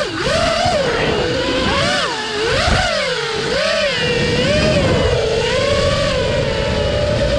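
Five-inch FPV quadcopter's HypeTrain 2207 2450KV brushless motors and props on 4S whining, the pitch swooping up and down with quick throttle changes. From about five seconds in the tone steadies and slowly rises, over a low rush of air.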